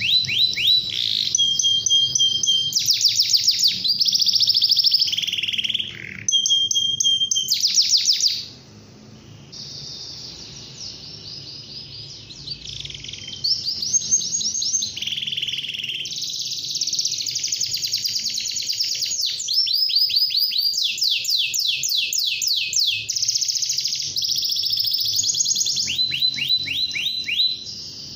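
Domestic canary singing: rolling phrases of fast, rapidly repeated high notes, many sweeping down in pitch, each phrase lasting a second or so before switching to the next. The song drops softer from about nine to thirteen seconds in.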